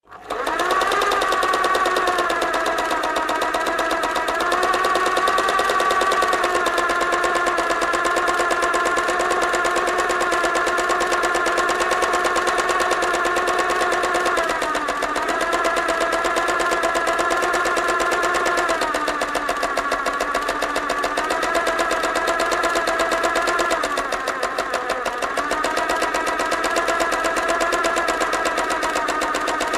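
Sewing machine running continuously at a fast, even stitch. Its pitch dips briefly a few times, about halfway through and twice more later on, as it slows for a moment.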